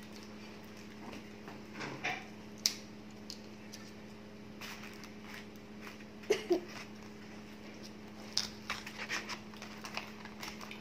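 Plastic fork and spoon clicking and scraping in paper food boxes, with paper wrappers rustling: scattered small clicks, heaviest near the end, over a steady low hum.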